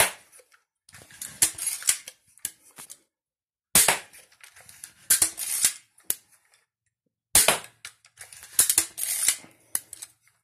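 Steambow AR-6 Stinger pistol crossbow shooting bolts in quick succession: three sharp snaps, about three and a half seconds apart. Between the shots come rattles and clicks as the crossbow is re-cocked and the next bolt loaded.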